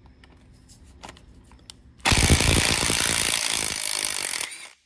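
Cordless Snap-on impact wrench with an 8-point socket hammering on the square plug of a new water pump, breaking it loose. The rapid hammering starts about two seconds in and cuts off abruptly near the end.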